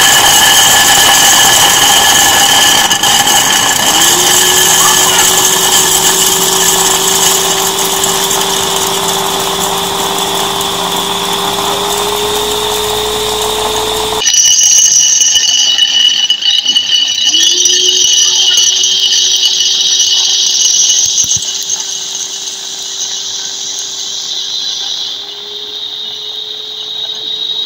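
Electric food chopper motor running at full speed, its blades grinding chocolate pieces into granules, with a steady whine whose pitch creeps slowly upward. The sound cuts abruptly about halfway and picks up again with the same rising whine.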